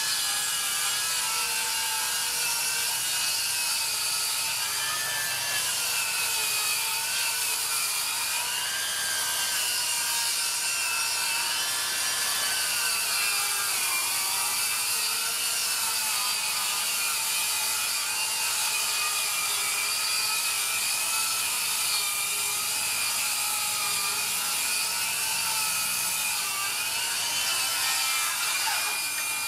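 Makita HS009G 40V 235 mm cordless circular saw ripping lengthwise through 45 mm pine at full cutting depth: a steady motor whine over the hiss of the blade in the wood, its pitch wavering slightly as the load changes.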